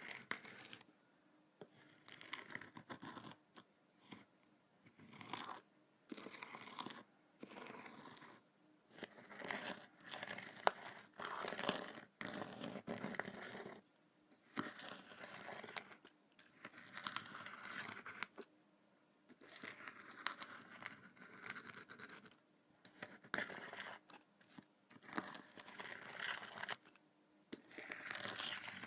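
Kinetic sand being worked up close: a series of gritty, crumbly scraping and cutting strokes, each about a second long, with short pauses between.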